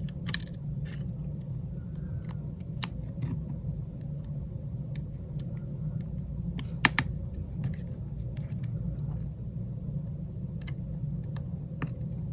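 Small scattered clicks and taps as the iPhone 8 Plus screen's flex-cable connectors are pressed onto the logic board, the sharpest about seven seconds in, over a steady low hum.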